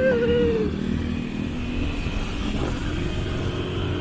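Motorcycle engine running steadily with road rumble while riding. A short sliding pitched sound trails off in the first second.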